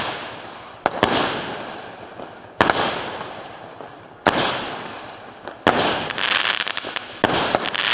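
Fireworks going off: five sharp bangs about every one and a half to two seconds, each followed by a long fading rumble. A burst of crackling follows the bang near the six-second mark.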